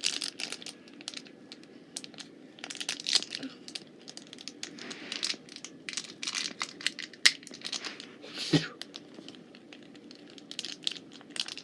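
Plastic toy packaging being handled, crinkling and rustling in irregular bursts with scattered small clicks.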